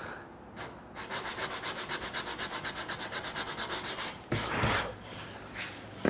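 Hand sanding of an ash edge: sandpaper on a sanding block is rubbed quickly back and forth in short, even strokes, about ten a second, to blend in a curved profile. A little past four seconds in, the strokes stop and there is one louder, longer scrape.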